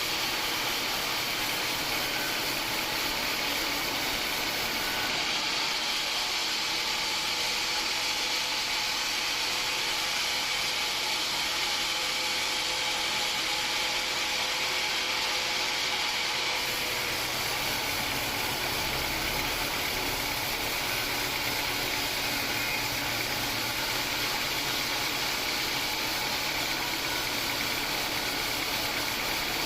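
Homemade band sawmill running steadily, its blade cutting through a hard acacia log with a continuous hissing whir. A lower rumble joins about two-thirds of the way through.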